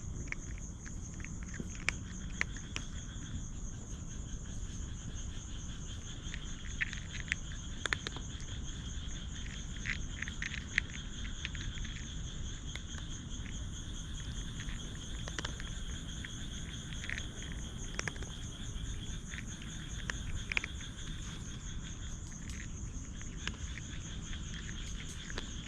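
Night insects, crickets or similar, trilling steadily in a high, fast-pulsing chorus. Scattered light ticks and taps come and go over the top of it.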